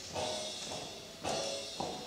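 Big band brass section and drum kit playing three short accented hits, each dying away before the next.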